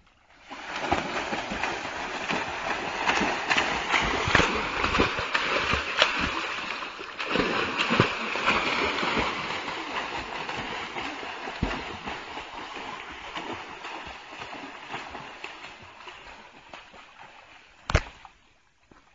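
People swimming hard through shallow creek water, steady heavy splashing and churning that slowly dies down toward the end. Near the end comes one sharp smack.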